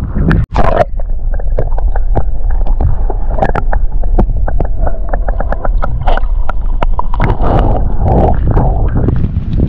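Wind buffeting the microphone in a heavy low rumble, with a run of irregular clicks and taps from close handling; the sound cuts out sharply for an instant about half a second in.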